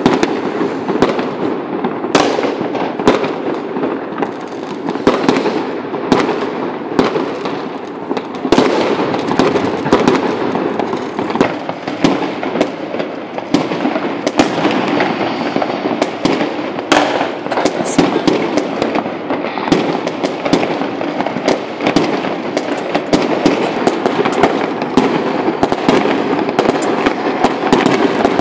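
Many fireworks and firecrackers going off at once across the city: an unbroken din of distant bangs, with frequent sharper pops standing out several times a second.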